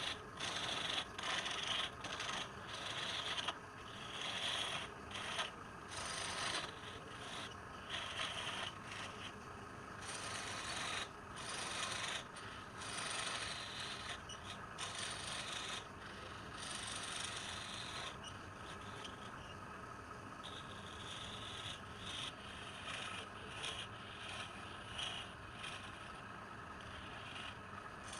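Wood being worked on a turning lathe: a tool rubbing and scraping against the spinning wood in repeated short strokes, with a steady hum beneath.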